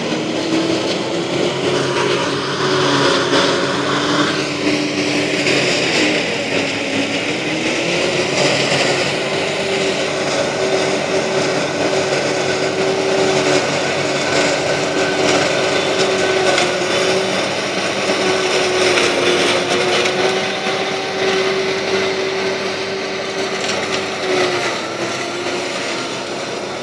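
Tractor engine working under load as it drives a trailed forage harvester chopping standing maize for silage, with the chopper's steady whirring hum. The pitch sags briefly about six seconds in, then recovers.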